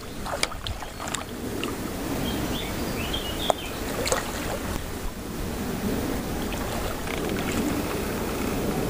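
Steady rumble of wind on the microphone over moving river water, with faint splashing as a West Highland terrier wades in and starts paddling.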